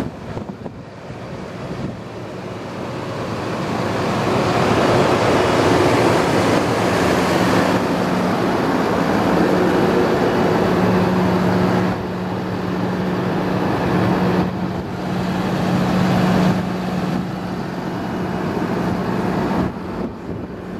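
Steady outdoor rushing noise of road traffic and wind. A low steady hum runs through the middle stretch and drops out near the end.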